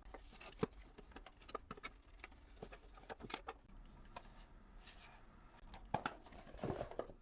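Faint, scattered clicks, taps and light rustles of small boxes and packaging being handled and set down, with a busier rustle near the end.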